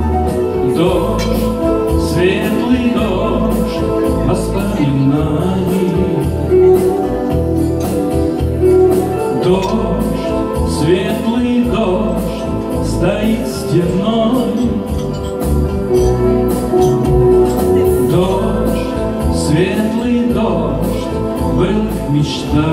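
Steel-string acoustic guitar strummed in a live song performance, over a steady bass accompaniment with a melody line on top.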